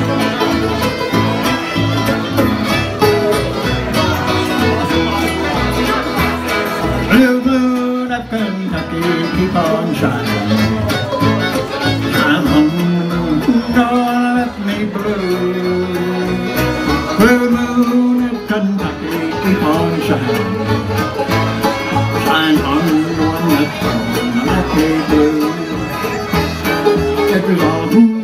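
Live bluegrass band playing an instrumental passage with no singing: fiddle, banjo, mandolin, acoustic guitars and upright bass.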